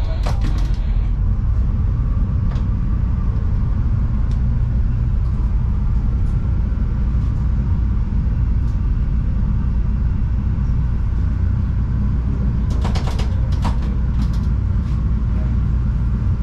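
CTA Yellow Line rapid-transit train running at speed between stations: a steady low rumble of wheels and traction motors, with bursts of sharp clicks near the start and again about thirteen seconds in.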